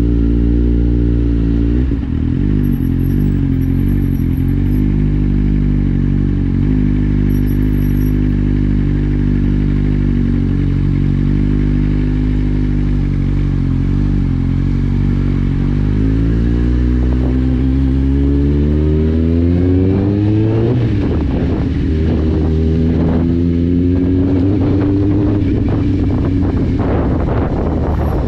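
Kawasaki Z750's inline-four engine through an Akrapovic exhaust with the dB killer removed. It runs at a low, steady pitch while rolling slowly, then the note rises under acceleration, drops at a gear change about two-thirds of the way through, and climbs again before settling.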